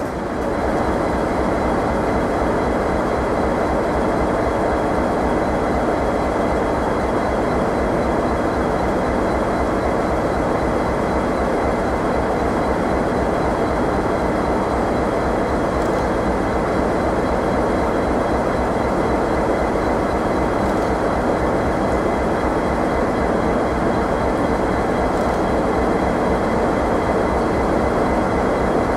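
V/Line N class diesel-electric locomotive idling close by, a loud, steady engine rumble with a fast even pulse underneath. It stays unchanged throughout.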